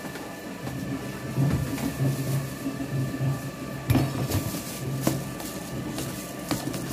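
A plastic bowl and a microwave oven door being handled, giving a few sharp knocks and clatters, mostly in the second half, over a low steady hum.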